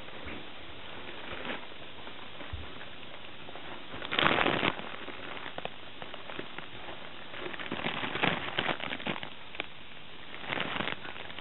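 Crinkling and rustling of a fabric play tunnel as a puppy crawls through it, in irregular crackly bursts, loudest about four seconds in and again in clusters later on.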